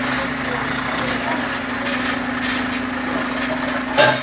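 Volvo FH 750 heavy truck's 16-litre inline-six diesel idling steadily, with one sharp knock near the end.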